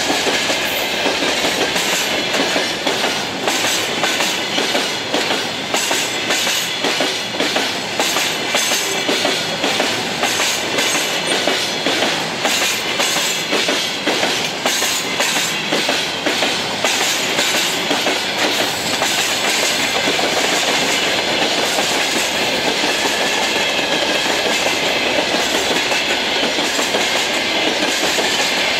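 Freight train of covered hopper cars and flatcars rolling past close by, the wagon wheels clacking over the rails in a steady rhythm over a continuous rumble. The clacking evens out somewhat after about twenty seconds.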